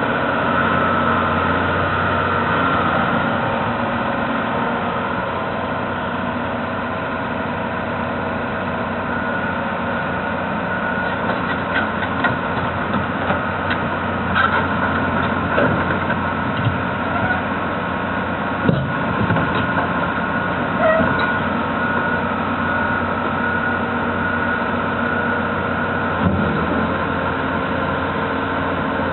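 John Deere log loader's diesel engine running steadily at idle, with a few short metallic clanks and knocks scattered through as the boom and grapple move.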